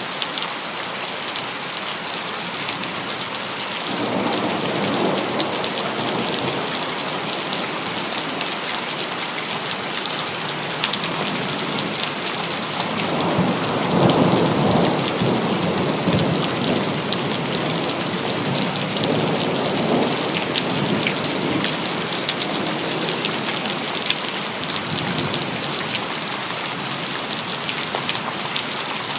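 Steady heavy rain hissing, with several rolling thunder rumbles swelling and fading; the loudest comes about halfway through.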